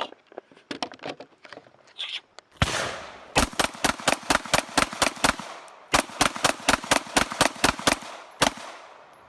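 Gunfire on a shooting range: one shot, then two quick strings of about ten shots each fired at roughly five a second, and a last single shot, each crack trailing off in an echo.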